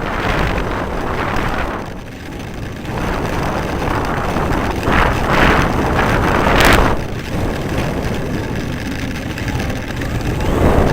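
Radio-controlled model airplane flying past, its motor noise swelling and fading several times with a sharp close pass about two thirds of the way in, with wind rushing on the microphone.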